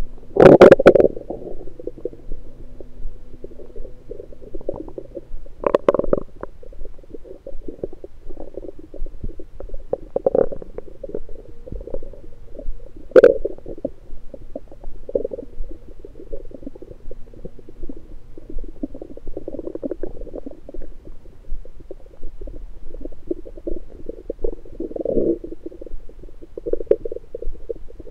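Human stomach and bowel gurgling during digestion after a meal, heard through an electronic stethoscope pressed to the belly. A continuous bubbling crackle runs throughout, with louder gurgles every few seconds; the strongest come right at the start and about 13 seconds in.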